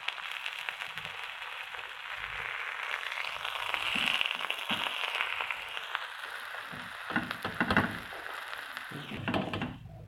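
Buttered sandwiches sizzling and crackling in a ridged grill pan, with a few knocks and scrapes of a spatula against the pan in the second half. The sizzling cuts off just before the end.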